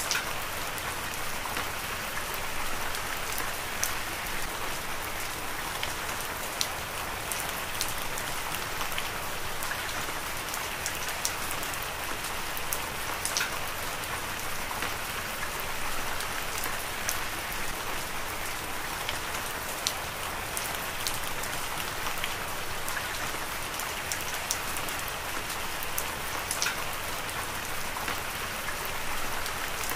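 Heavy rain falling steadily: a dense, even hiss with many scattered sharp drop ticks.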